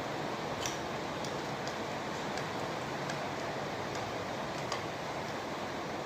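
Small irregular metallic clicks from screws and tools being handled while a ceiling fan blade is screwed onto the motor, over a steady hiss.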